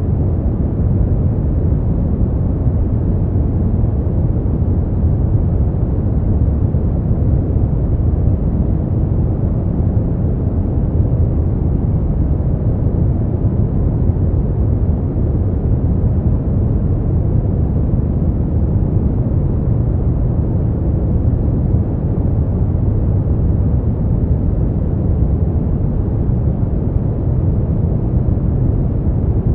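Steady, unchanging noise track for sleep, deep and rumbling, heavy in the bass with little hiss on top.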